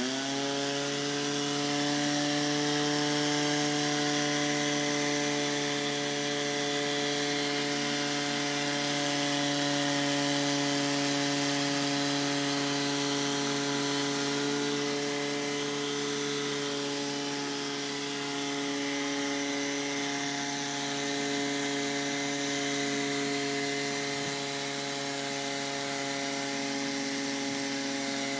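Electric motor on an automated machine starts up with a quick rising whine, then runs at a steady speed. It gives a constant hum-whine with a hiss over it.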